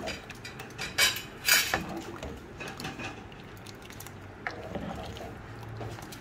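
Steel spoon stirring a thick lentil-and-bottle-gourd curry in a speckled stone-coated pot, clinking and scraping against the pot, with the sharpest clinks about one and one-and-a-half seconds in.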